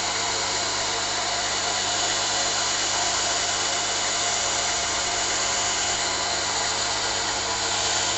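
Four-bucket milking machine's vacuum pump unit running, a steady, unchanging mechanical noise.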